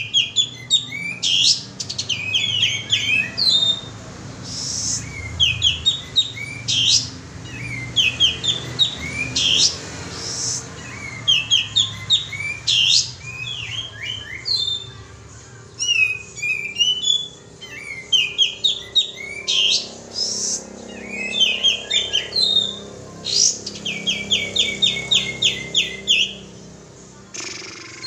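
Kapas tembak bird song played as a lure call: short phrases of quick, high chirping notes every second or two, with a fast run of about ten even notes near the end.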